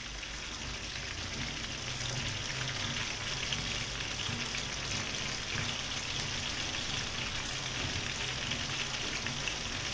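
Fish frying in hot oil in a pan: a steady sizzle with fine crackling.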